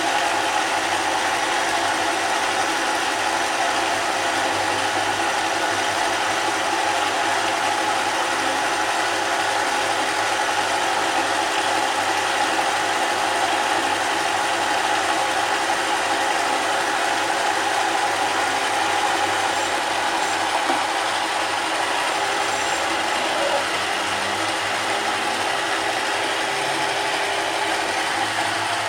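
Mini lathe running steadily under power, its gear train giving a constant whine.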